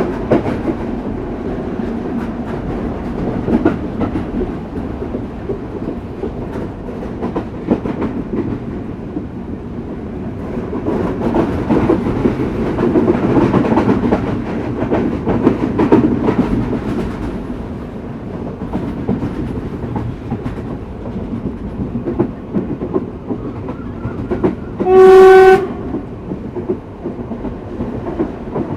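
Express passenger train running on the rails, its wheels clicking over the rail joints above a steady rumble that swells for a few seconds in the middle. About 25 seconds in comes one short, loud train horn blast.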